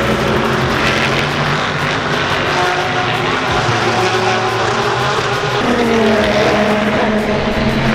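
Race car engines running on the circuit, several at once. Their pitch slides down and up as the cars pass and change speed, with a new engine note rising about six seconds in.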